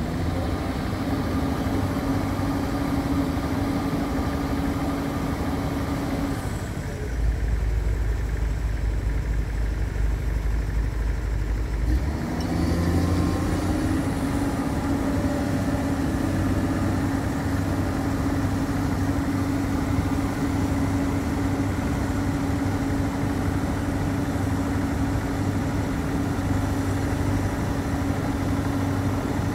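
Komatsu PC210 hydraulic excavator's six-cylinder diesel engine running with a steady hum while it works the sheet piles. For a few seconds near the middle a low rumble takes over, then the engine note rises briefly and settles back to a steady run.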